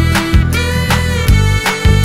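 Instrumental background music with a steady beat of about two drum hits a second under pitched melody notes and bass.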